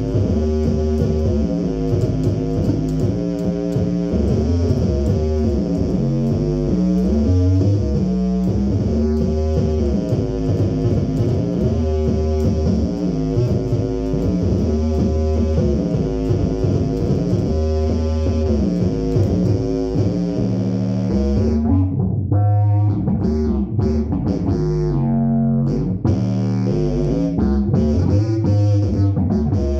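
Four-string fretless electric bass played through a Phil Jones Bass amp and cabinet: an improvised line of sustained notes that slide between pitches. A high hiss behind it cuts out about three quarters of the way through.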